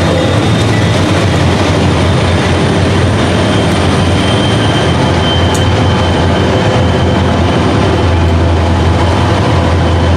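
Freight train rolling past at close range: a loud, steady rumble with rail noise, with no horn sounding.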